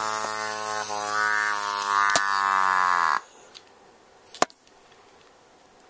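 Compressed air leaking out of an ICD ProMaster paintball marker's frame with a steady, reedy buzz, the "farting noise" of its low-pressure regulator turned in until it leaks. About three seconds in the buzz sags slightly in pitch and cuts off suddenly, followed a second later by a single sharp click.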